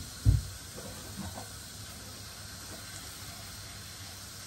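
Chopped garlic sizzling gently in oil in a frying pan, a steady soft hiss. A low thump comes just after the start.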